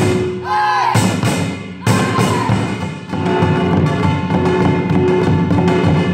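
Samulnori percussion ensemble playing: janggu and buk drums beat a fast rhythm under a ringing kkwaenggwari small gong. Sharp drum strokes come at the start and again about two seconds in.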